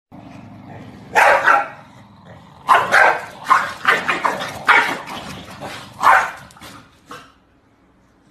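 Corgi barking repeatedly: about ten sharp barks in quick clusters, stopping about seven seconds in.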